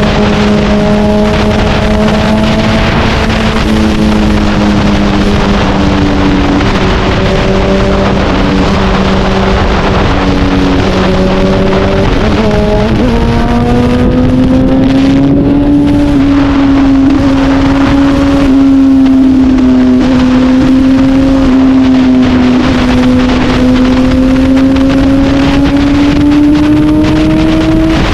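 Honda CBR1000RR's inline-four engine running hard through a straight-through exhaust while riding. It holds steady revs, then rises in pitch about twelve seconds in and holds the higher revs, wavering slightly.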